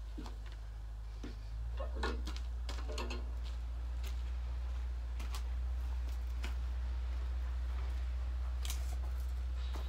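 A steady low rumble that grows a little louder about a second and a half in, with scattered sharp clicks and knocks, a cluster of them a couple of seconds in and more near the end.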